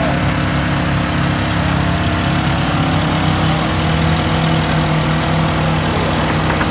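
Side-by-side UTV engine running steadily at low revs, a constant hum without revving.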